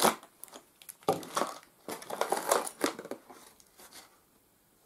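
Plastic and paper packaging crinkling and rustling in irregular bursts, with a few light taps, as small craft tools are pulled out of a paper pouch; it dies away near the end.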